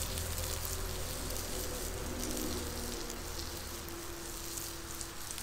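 Diced sweet potatoes sizzling in a cast iron skillet over wood coals: a steady hiss flecked with small crackles.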